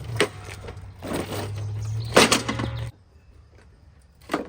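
Steel lawnmower deck clattering and scraping as the mower is flipped over, with a loud bang about two seconds in. A low steady hum runs under it and cuts off suddenly about three seconds in, leaving only a few light knocks near the end.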